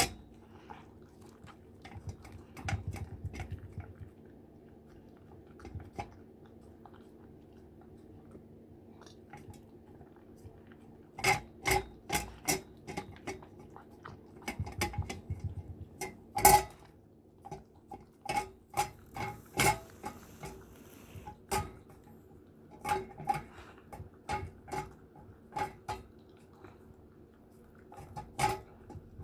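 Borzoi eating from its food bowl: the bowl clatters and knocks as the dog noses and chews, sparse at first, then a busy run of knocks about two a second from about a third of the way in, over a faint steady hum.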